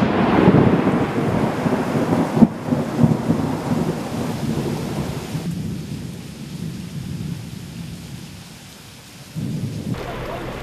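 Heavy rain with rolling thunder, loudest in the first few seconds and then fading away. About a second before the end the sound changes abruptly to a steadier noise with a low hum.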